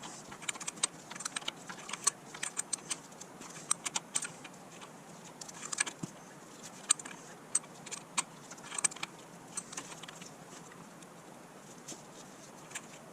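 Irregular light metallic clicks and clinks of a hand wrench working on the new oil pressure switch, sometimes several a second, with pauses between.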